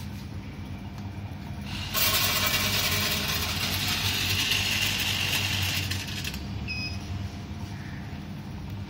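SIKRI Mini Herbs Weigh Filler dispensing product into its weigh pan, a loud rushing noise for about four seconds starting two seconds in, as the weight climbs toward its set dose of 250. It stops abruptly and is followed by two short high beeps, over a steady low machine hum.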